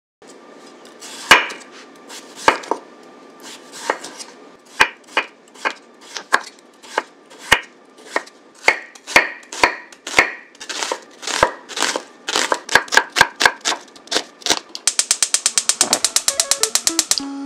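Kitchen knife chopping food on a cutting board. It starts with separate, unevenly spaced cuts, and from near the end it becomes a quick run of rapid chops, several a second.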